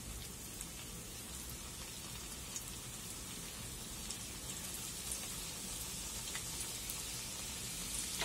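Hot oil sizzling steadily with a fine crackle as potato-filled pastry pockets deep-fry in a pan. It grows a little louder as more pockets are laid into the oil.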